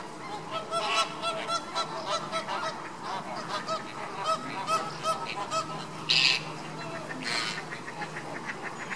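Flock of Caribbean flamingos calling: a continuous chatter of short, goose-like honks overlapping one another, with two louder, harsher calls about six and seven seconds in.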